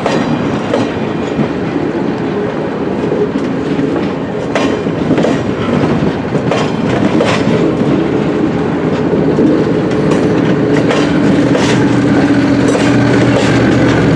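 Stainless-steel passenger cars of the BNSF office car train rolling by close at slow speed, their wheels clicking irregularly over rail joints above a steady rolling rumble. A steady low hum grows in over the last few seconds.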